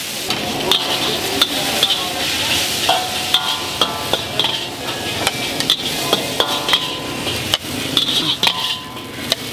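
Noodles frying in a wok over a charcoal fire: a steady sizzle, with a metal spatula striking and scraping the wok in frequent, irregular clinks.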